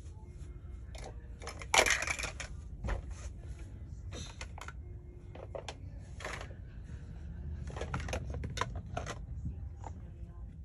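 Large plastic toy building blocks clicking and clattering against each other as a toddler handles and stacks them: a series of irregular knocks, the loudest about two seconds in.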